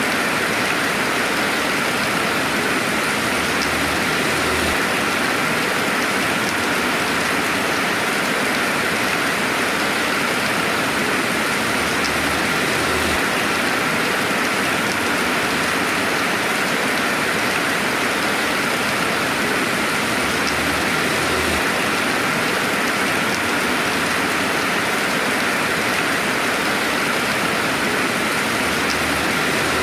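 Steady rainfall ambience: an even hiss of rain with no thunder.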